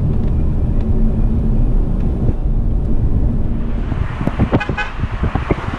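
Car cabin road noise while driving: a steady low rumble of tyres and engine. From about four seconds in, a run of sharp clicks and rattles joins it.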